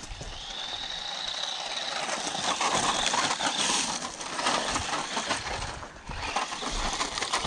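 Electric motor of a 1:18-scale DEERC 9300 RC truck whining as the truck drives at speed on its high power setting, with a noisy rush underneath. It grows louder over the first few seconds and eases off briefly near the end.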